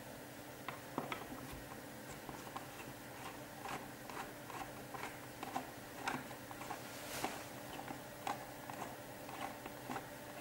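Small screwdriver turning out a corner screw of a small electronics enclosure: faint, irregular clicks and ticks of the bit working the screw.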